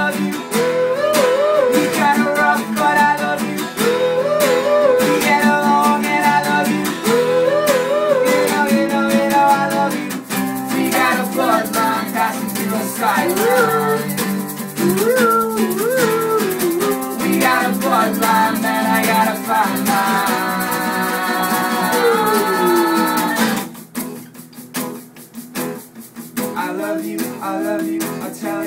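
Acoustic band playing: two acoustic guitars strumming under a shaker, with a wordless melody line carried over the top. Near the end the music drops back to a thinner, quieter passage.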